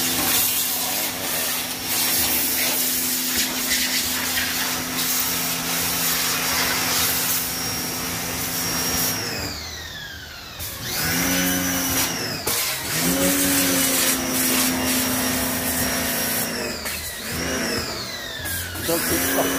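Electric pressure washer (jet wash) running while it sprays water, with a steady motor hum over the hiss of the jet. Partway through, the motor stops and starts several times as the trigger is let go and pressed again. Each time the hum falls in pitch as the motor winds down, then picks up again.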